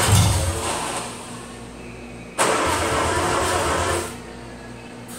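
Triumph TR250's 2.5-litre straight-six being cranked by the starter in two bursts, one at the start and one about two and a half seconds in, each lasting a second or two. Each time the engine stops without running on, so it is not yet catching.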